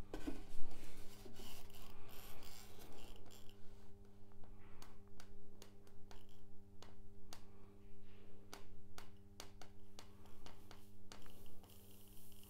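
A block of extruded polystyrene foam handled and slid across a hot-wire cutter's table: irregular rubbing and sharp creaking clicks from the foam, loudest about half a second in. A steady low electrical hum runs underneath.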